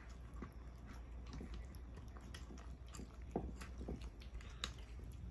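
Cats eating from plastic bowls: faint, irregular crunching of dry kibble with small clicks, over a low steady hum.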